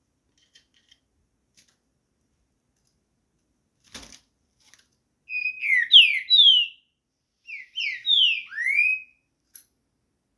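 Caged green-winged saltator (trinca-ferro) singing two short phrases of loud, clear whistled notes, each note slurring quickly downward, the first about five seconds in and the second about a second and a half later. A single faint click comes about four seconds in.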